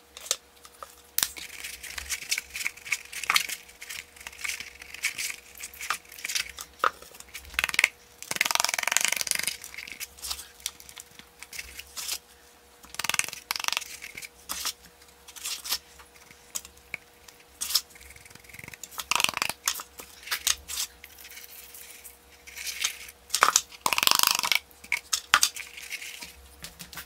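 Sawdust being pressed and rubbed by hand into a glue-coated felt hat and the hat handled over plastic sheeting and a sawdust bucket: irregular rustling, scraping and crinkling with many small clicks, and two longer rustling bursts, one about eight seconds in and one near the end.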